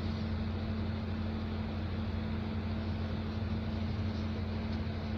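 A steady low hum with a hiss beneath it, unchanging throughout.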